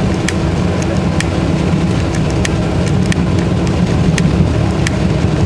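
Inside a moving AKSM 84300M trolleybus: a steady low running rumble of the vehicle and its tyres on the road. Light ticks sound over it about every half second to second.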